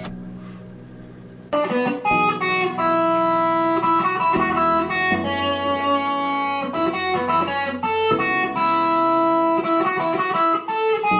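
Background music led by a plucked guitar, coming in loudly about a second and a half in and playing a melody of held notes.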